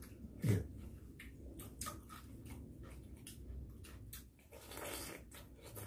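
Quiet eating sounds of people eating lotus-leaf rice with spoons and chopsticks: chewing and many small, sharp clicks and taps of the utensils. There is a short, falling 'mm' from a voice about half a second in.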